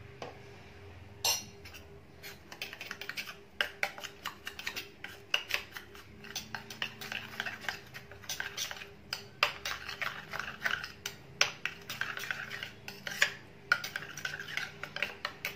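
A steel spoon stirring in a small stainless-steel bowl, clinking and scraping against its sides in quick irregular strokes as it mixes flour into ghee.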